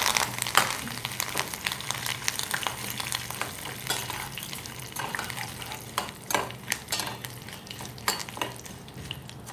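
Oil tempering (tadka) of mustard seeds, cumin and dried red chillies sizzling in a stainless steel saucepan while a metal spoon stirs and scrapes the pan. The sizzle is loudest at the start and settles within about a second into a lighter crackle with scattered sharp clicks.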